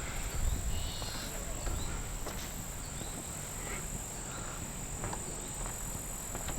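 Insects trilling steadily in one high unbroken tone, over a low rumble, with a few faint clicks scattered through.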